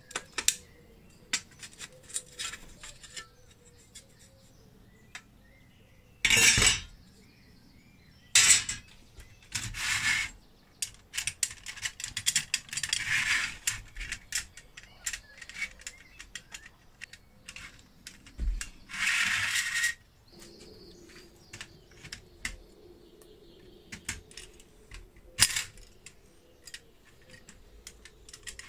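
Sheet-metal parts of a vintage toy cash register being pulled apart and handled: scattered metal clicks and clinks, with several short, louder scraping bursts.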